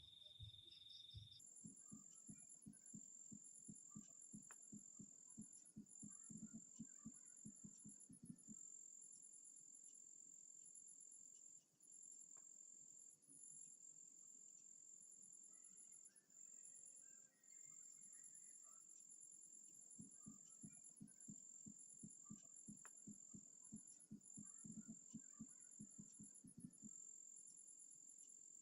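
Night insects, crickets, chirring: a steady high shrill note broken by short gaps, with rapid pulsed trills above it. Twice, a low rapid pulsing of about four beats a second joins in for several seconds.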